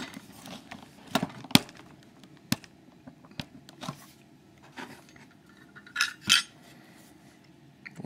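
Scattered metal clinks and taps as a Metal X6V euro-profile lock cylinder and other small metal items are handled and set down on a desk mat. The sharp clicks come every second or so, with two in quick succession about six seconds in.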